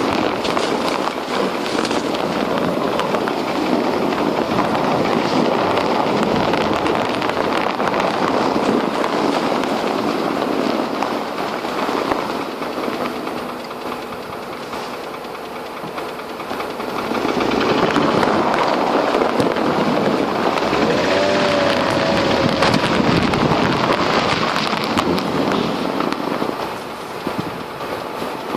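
Mercedes-Benz W211's M112 V6 petrol engine running with a dense, rapid knocking rattle, the knock the owner is recording. It gets quieter for a few seconds around the middle, then louder again.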